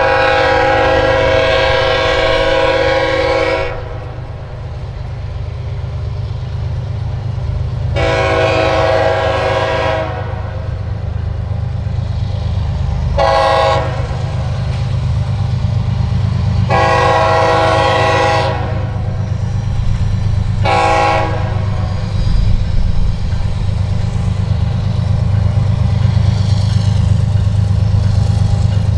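Air horn of an approaching Kansas City Southern diesel locomotive sounding for a grade crossing: a long blast, another long, a short, a long, and a final short. Under it runs the low, steady rumble of the locomotives' diesel engines, growing louder as the train draws near.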